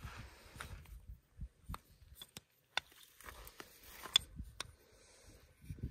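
Faint scattered clicks and small knocks of a small metal mounting bracket and its pin being handled, with light rustling between them; the sharpest click comes about four seconds in.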